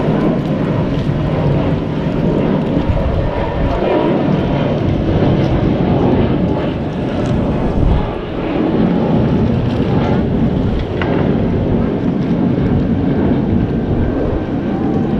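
Steady wind buffeting the camera microphone, a continuous low rumble.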